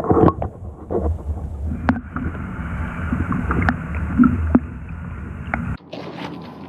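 Muffled rushing and sloshing of river water heard through an underwater camera, a deep rumble with a few sharp clicks, which cuts off abruptly near the end.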